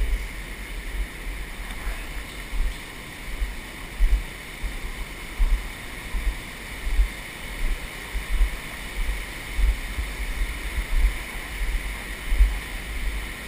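Steady rush of an underground stream flowing through a limestone cave, with irregular low bumps from the handheld microphone.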